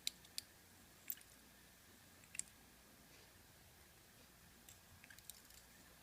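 Faint, scattered light clicks of small metal lock parts being handled: pins and springs coming out of a Yale euro cylinder as it is gutted. Otherwise near silence, with a few clicks bunched together near the end.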